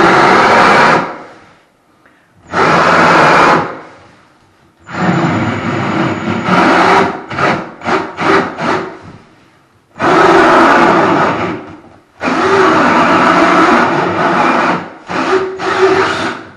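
Drill-driven hole saw cutting through a wooden door in bursts of one to four seconds with short pauses, run in quick short pulses in places. It is being eased through slowly as the cut nears breaking out the far side.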